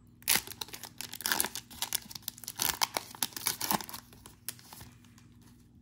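Wrapper of an NBA Hoops trading card pack being torn open and crinkled: a run of irregular rips and rustles lasting about four seconds, dying away near the end.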